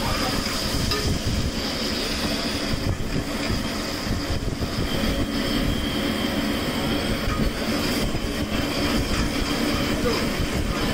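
High-pressure LPG stove burner roaring steadily under a frying pan, a constant deep rumble with a hiss over it.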